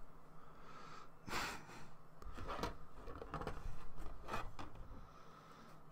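Faint, scattered clicks and rustles of plastic model-kit parts being handled and set down, over a quiet room hiss.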